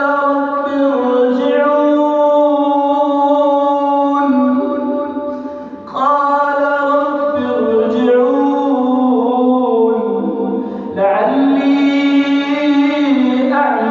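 A man reciting the Quran in melodic tajweed style, drawing out long held, slowly gliding notes. New phrases begin about 6 seconds in and about 11 seconds in.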